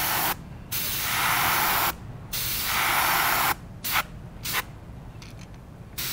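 Airbrush spraying paint onto a lure in bursts: three spells of about a second each, then two short puffs about four seconds in.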